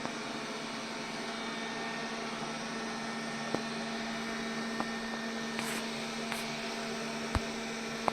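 MOVA robot vacuum cleaner running with a steady motor hum and whirr, with a few short light clicks along the way.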